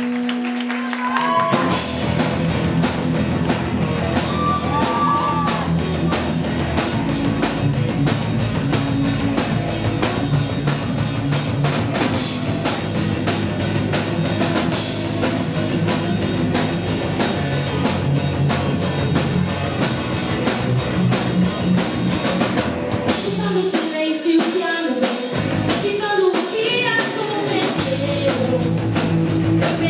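A live rock band playing loudly, with electric guitar, bass and drum kit and a woman singing. The full band comes in about a second and a half in, and the bass drops out briefly about three-quarters of the way through.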